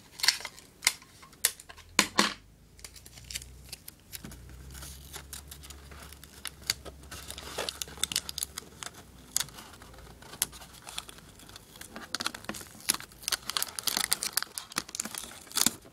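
Pieces of tape being pulled off the roll, torn and pressed onto a cardboard box, with crinkling and sharp ripping sounds: a few in the first seconds and a dense run in the last few seconds.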